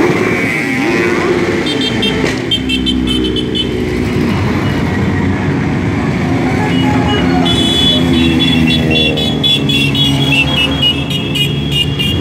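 A procession of motorcycles riding past one after another, engine pitch rising and falling as each bike goes by. Short repeated high-pitched horn beeps sound about two seconds in and again through the second half.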